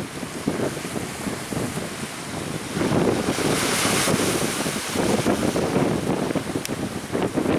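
Strong wind buffeting the microphone over the rush of surf. It grows louder about three seconds in, with a hissing surge of wind or breaking water for about a second.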